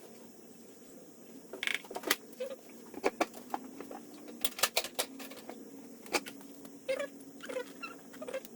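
Gear oil being filled into a motorcycle final drive: scattered small clicks and short squeaks from the plastic oil bottle and its nozzle being handled at the filler hole, over a faint steady hum.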